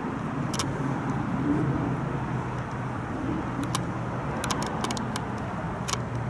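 Steady low motor hum, with several short sharp clicks scattered through.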